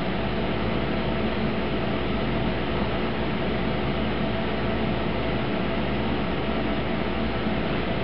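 Aquarium pump running with a steady hum and hiss.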